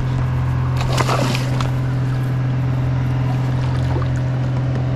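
Water sloshing against a kayak's hull, with a brief louder splash about a second in, over a steady low hum.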